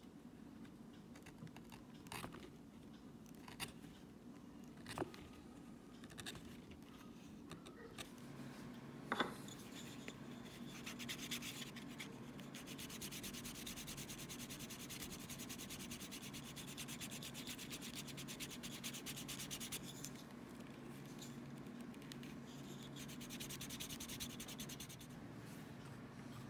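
Wooden edge slicker rubbed rapidly back and forth along the edge of a leather knife sheath, burnishing it: a fast, even, dry rubbing that starts about a third of the way in. Before it there are a few light clicks and scrapes of hand tools on the leather, and a steady low hum runs underneath.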